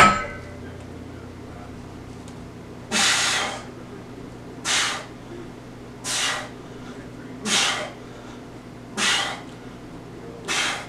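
A man's forceful breathy exhales, one with each bench-press repetition, six in all about a second and a half apart. A single sharp clank of the loaded barbell comes right at the start.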